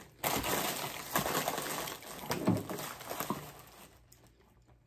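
Plastic snack wrappers and tissue paper crinkling as hands rummage through a cardboard snack box, dying down about four seconds in.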